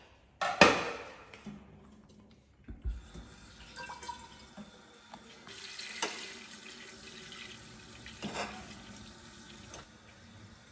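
A sharp metal clank with a short ringing tail, then a kitchen tap running water into a stainless steel pot from about three seconds in, with a few light knocks of the pot against the steel sink.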